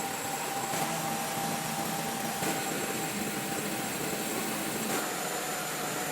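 Steady noise of running factory machinery, a constant even hiss with a faint steady whine.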